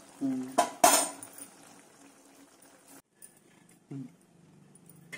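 A single sharp clink of steel kitchenware about a second in, with a short ring after it. The rest is low, with a faint steady hum.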